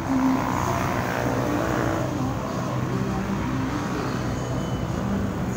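Road traffic: motorcycle engines passing, a steady drone that swells in the first couple of seconds.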